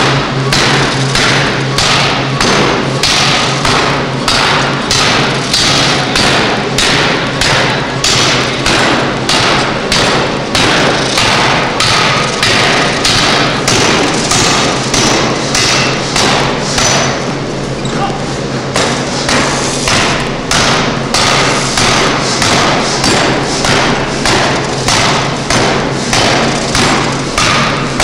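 A 1-ton pneumatic forging hammer strikes a red-hot metal bar in rapid, even blows, about two a second. There is a short lull about two-thirds of the way through, and a low steady hum runs underneath.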